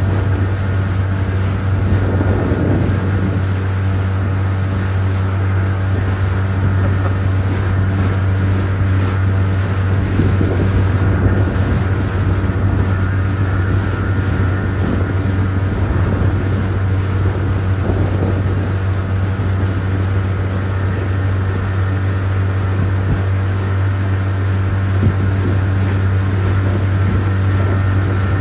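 Outboard motor on a Gheenoe running at a steady cruising speed, a constant low drone that holds the same pitch and level throughout.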